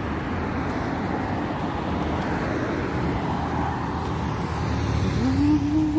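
Steady road traffic noise from cars passing on a multi-lane city street. A short rising tone comes in a little after five seconds and is the loudest moment.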